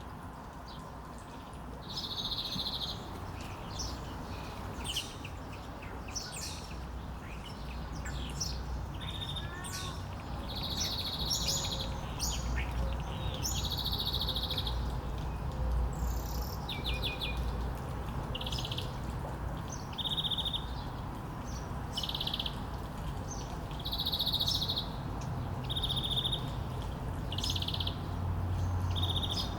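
Songbirds calling: short high trilled chirps repeating every second or two, mixed with thin quick whistles, over a steady low background rumble.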